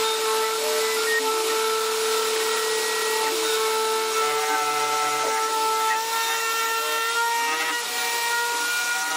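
Spindle of a DIY 4040 CNC router running with a steady whine while a 2 mm tapered ball-nose end mill carves a relief into a wooden board, with the noise of the cut over it.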